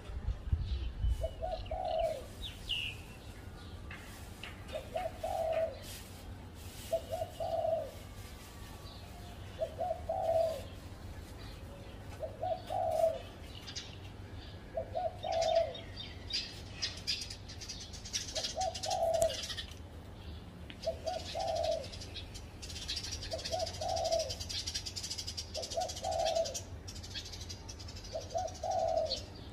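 Spotted dove cooing, one low coo repeated about every two and a half seconds. Smaller birds chirp higher-pitched from around the middle and again near the end.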